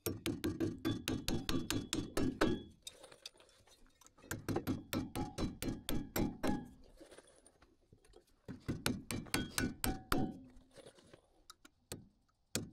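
Steel hammer driving nails through a metal joist hanger into a wooden I-joist: three runs of quick taps, about six a second, with short pauses between.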